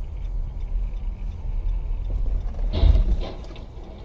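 Low road and engine rumble inside a moving car. About three seconds in comes a short, loud cluster of thuds and crunching as a car skidding on the snowy road collides with a box van.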